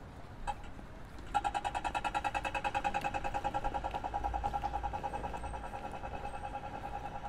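Pedestrian crossing signal ticking: a single slow tick, then about a second in it switches to rapid pitched ticking, about ten a second. The fast tick signals that the light has turned to walk. Low traffic rumble underneath.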